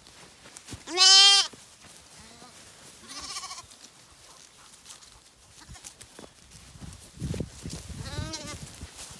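Zwartbles bottle lambs bleating: one loud, wavering bleat about a second in, a couple of fainter bleats just after it, and another bleat near the end.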